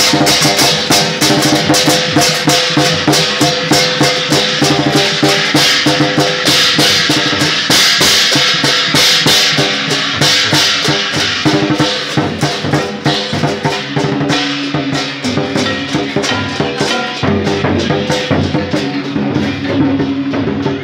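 Vietnamese lion dance percussion: a drum beaten in a fast, driving rhythm with hand cymbals clashing along with it, loud and continuous.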